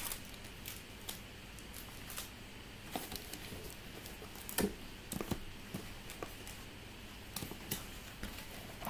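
Foil-wrapped trading card packs being handled and dealt into two piles: scattered light taps and crinkles, a few sharper ones near the middle.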